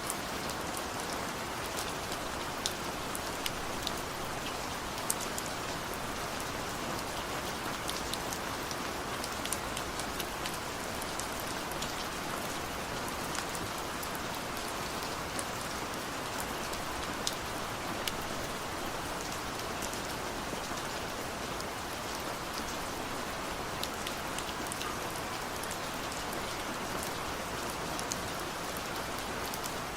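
Heavy rain falling steadily, a dense even hiss with many sharp drop ticks scattered through it.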